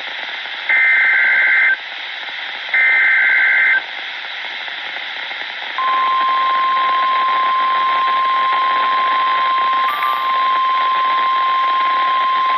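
Emergency alert data over weather radio: two one-second buzzy SAME header bursts, then, from about six seconds in, the steady single-pitch 1050 Hz warning alarm tone, with a brief stutter near ten seconds and static hiss throughout. The header and tone mark the start of a new warning broadcast.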